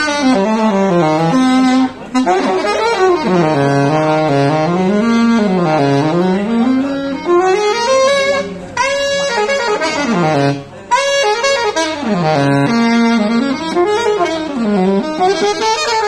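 Alto saxophone played through a J&B Custom Cheetah I 7 mouthpiece with a Suite 1 ligature, running fast phrases of notes that sweep up and down over a wide range. The playing breaks off briefly twice, about two seconds in and again around ten and a half seconds.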